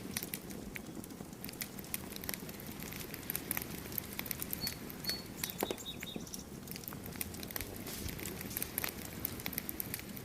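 Wood campfire crackling: scattered, irregular sharp pops and snaps of burning wood over a low steady rush of the flames.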